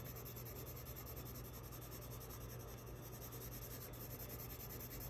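White colored pencil rubbing over blue construction paper in light shading strokes, a faint steady scratching.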